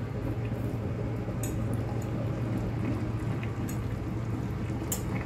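Braised lamb shanks in thick tomato sauce simmering gently in an enamelled braiser, the sauce bubbling and squelching as a fork pokes the tender meat. A few light clicks come from the fork touching the pot, all over a steady low hum.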